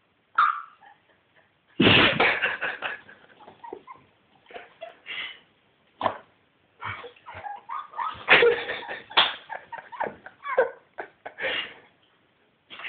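Labrador retriever sneezing again and again after playing in snow: a string of short, sharp bursts, the loudest about two seconds in and again past the middle.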